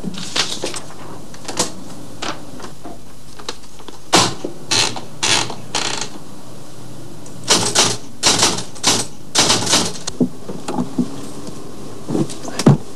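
Typewriter keys clacking in bursts of rapid keystrokes, with short pauses between the bursts.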